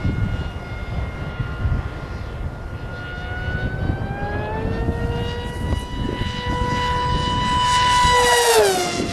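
Electric RC jet making a fast low pass. Its motor whine rises in pitch about four seconds in and holds, grows loudest near the end, then drops sharply in pitch as the plane goes by: the Doppler shift used to measure its speed.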